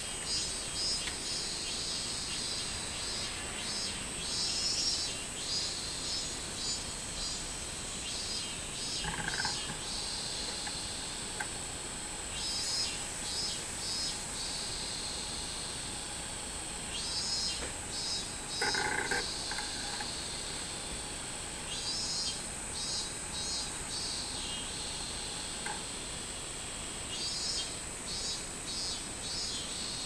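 Robust cicadas (minmin-zemi) singing: repeated pulsing phrases that come back about every five seconds, over a steady high-pitched buzz.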